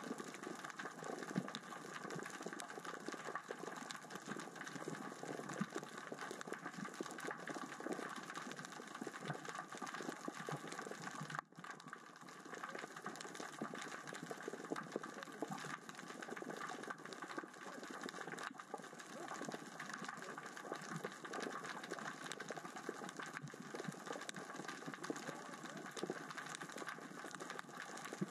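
Underwater ambience of small rocks rolling and knocking across the sea floor as the current and tide move them: a dense, steady crackle of tiny clicks, briefly dipping about eleven seconds in.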